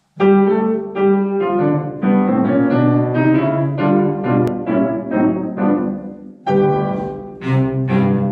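Grand piano playing a ragtime introduction, a quick run of struck notes and chords. After a short break about six and a half seconds in, the music starts again and a bowed cello joins the piano near the end.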